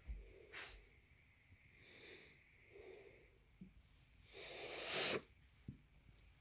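Wirehaired vizsla dogs making breathy huffs through the nose: a few soft, short puffs, the loudest lasting nearly a second about four and a half seconds in.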